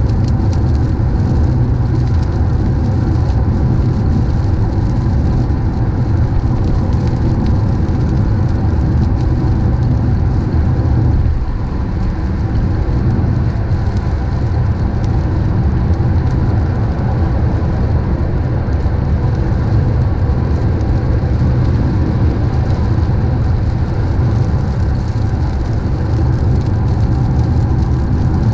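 Car driving in rain: a steady low rumble of road and engine noise, with the hiss of rain over it.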